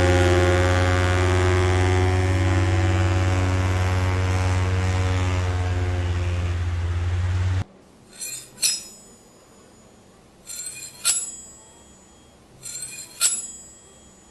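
A loud steady drone with many overtones cuts off abruptly after about seven seconds. Three short bursts of sharp metallic clinks with a high ringing follow, a couple of seconds apart.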